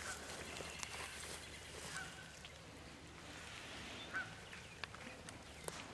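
Turkey clucks: three short, faint calls about two seconds apart, with a few light ticks of brush in between.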